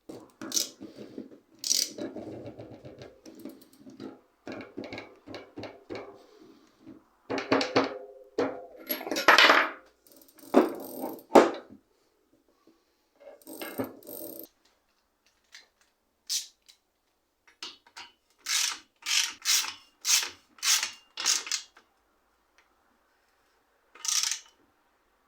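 Bicycle parts and hand tools being handled during a workshop repair: irregular metallic clicks, rattles and knocks, with a run of about six evenly spaced strokes, about two a second, near the end.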